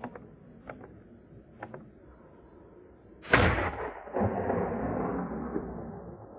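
A single gunshot about three seconds in, its report echoing and fading away over a couple of seconds, with a weaker echo-like crack about a second after it. A few faint clicks come before the shot.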